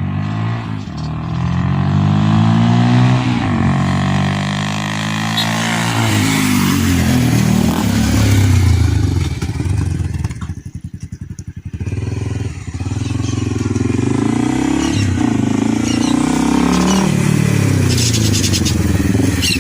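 Honda CB 300's single-cylinder engine through an aftermarket Fortuna mini sport exhaust, revving up in repeated rising sweeps as it accelerates and shifts. About ten seconds in it drops to a low, pulsing beat off the throttle, then pulls up again and falls away near the end.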